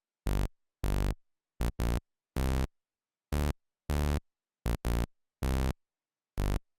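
Soloed gritty synth playing a rhythmic pattern of short, clean-cut stabs, some in quick pairs, with a buzzy tone full of overtones and silence between notes. It is the second of three synth layers in an Afrobeats-style beat, the one that adds grit to the chorus.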